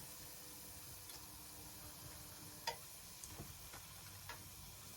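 Faint steady sizzle of hot frying oil in a pan, with a few light clicks of a utensil, the clearest about two and a half seconds in.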